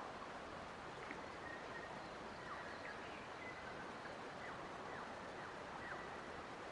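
Faint birds calling in short, thin, high chirps and brief falling notes over a steady soft hiss of forest ambience.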